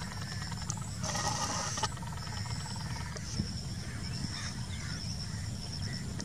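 Outdoor night ambience with animal calls: a steady, pulsing high-pitched trill and a short harsh call about a second in, over a continuous low rumble.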